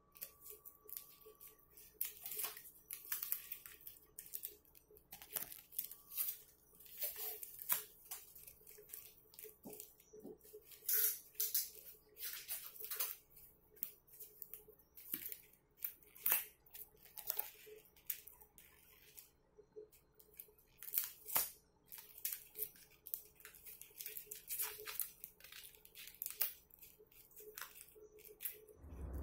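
Paper masking tape crinkling and tearing in irregular short rustles as gloved hands peel strips and press them over a flashlight reflector.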